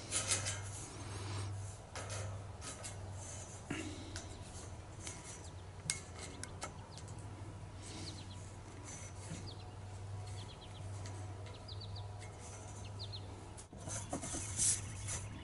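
Hand-held saw set clicking and scraping as it squeezes the teeth of a steel bandsaw-mill blade one by one, the blade rubbing against the tool as it is moved along, with irregular sharp clicks. Birds chirp faintly in the background, a low steady hum runs underneath, and there is louder rustling near the end.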